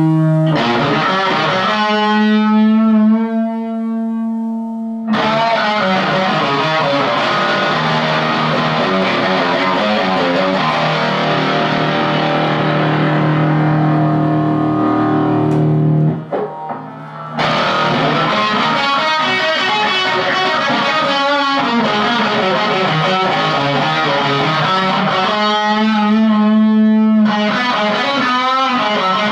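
Gibson Les Paul Studio electric guitar played through a Marshall Jackhammer JH1 distortion pedal into a Marshall MG15CD amp: distorted riffs with held notes and chords, stopping briefly about sixteen seconds in before the playing resumes.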